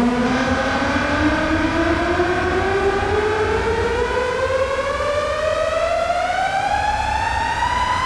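Synthesized riser in an electronic intro: a single siren-like tone glides slowly and steadily upward over a steady low rumble. A second steady high tone joins shortly after it begins. It is the build-up sweep ahead of a drop.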